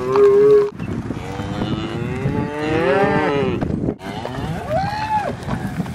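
Black Angus cattle mooing: three drawn-out calls, the longest in the middle rising and then falling in pitch.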